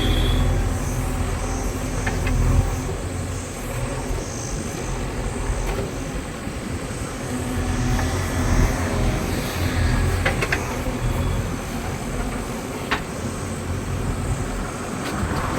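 Heavy diesel engine of a backhoe loader or tractor running steadily with a low rumble, with a few faint clicks.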